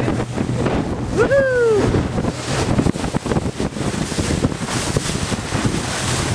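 Wind buffeting the microphone on an open boat at sea, over the steady low hum of the boat's motor. About a second in comes one brief call that rises and then falls in pitch.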